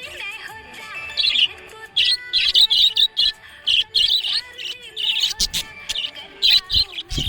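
Budgerigars chirping in quick, bright bursts of twittering over background music, with a few low thumps near the end.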